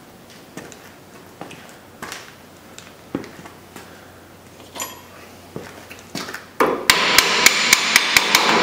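Hammer tapping a rear brake caliper down into place over the new pads. A few light scattered knocks come first, then about two-thirds in a quick run of sharp metallic taps, roughly four a second, over a loud rushing noise.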